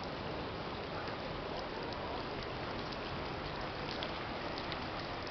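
Steady rush of falling water: an even, unbroken hiss with faint scattered ticks.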